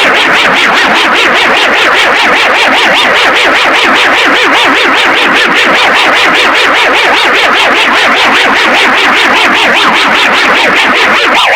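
Loud, harsh synthesized emergency alert (EAS) alarm: a dense, noisy, echoing tone pulsing rapidly and evenly without a break.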